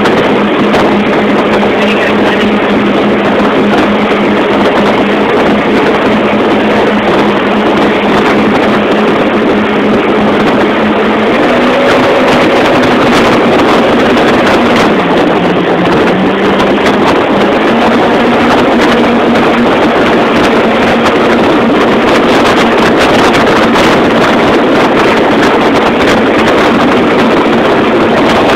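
Motorboat engine running steadily at towing speed under a loud rush of wind and churning water. Its note lifts briefly about twelve seconds in, then dips a few seconds later before settling again.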